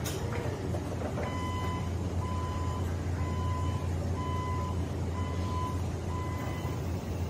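Hyundai electric reach truck sounding its warning beeper: six even beeps of one pitch, about one a second, starting about a second in. Under the beeps is the steady low hum of the truck's hydraulic pump as the mast lifts a pallet.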